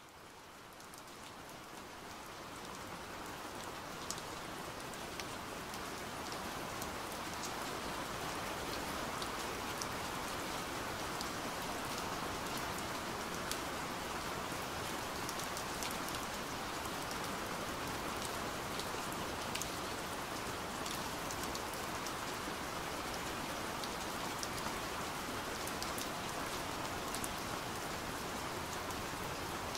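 Steady rain falling, a dense even hiss with scattered sharper drop ticks. It fades in over the first several seconds, then holds steady.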